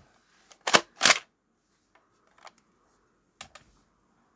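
Sharp clacks of hard objects being handled: two loud ones close together about a second in, then a few fainter clicks.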